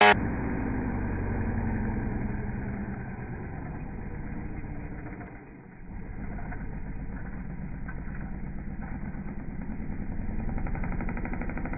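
Honda CR125 two-stroke single-cylinder dirt bike engine running at low revs with a steady, rapid pulse. The revs sag briefly about halfway, then pick up again and grow a little louder near the end.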